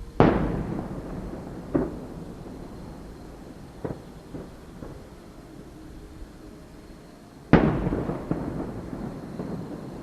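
Aerial firework shells bursting: two loud booms about seven seconds apart, each trailing off over a couple of seconds, with a few smaller bangs in between.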